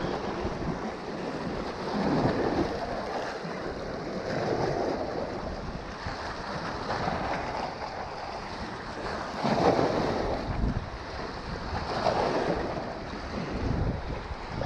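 Small waves washing and breaking over jetty rocks, swelling and falling every few seconds and loudest about ten seconds in, with wind on the microphone.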